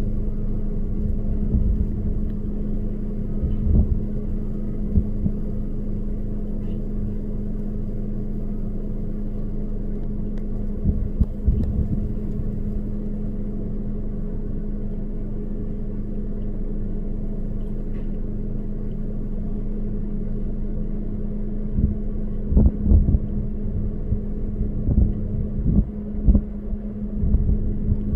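Vehicle engine running steadily with a constant hum, over a low rumble that swells in short gusts a few times, most often near the end.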